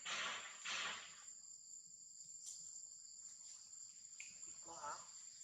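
Steady high-pitched insect chirring, with two short, louder rushes of noise in the first second and a brief pitched call or voice near the end.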